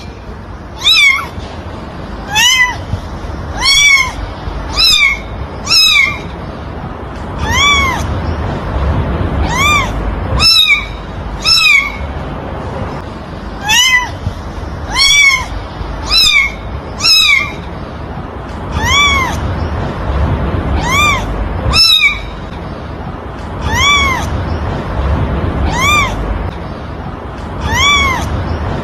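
Kitten meowing over and over: short meows, each rising then falling in pitch, about one a second with a few brief pauses, over a steady low hum.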